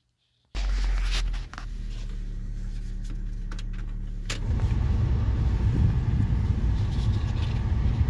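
Pickup truck engine idling with a steady low hum and a few small clicks. About four seconds in, the cab's heater fan is switched on and a louder rush of air from the vents comes in and keeps going.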